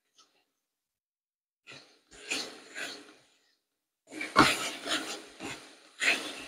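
A spoon stirring browned minced meat in a frying pan: several short scraping strokes, starting a little under two seconds in, with a few light knocks against the pan.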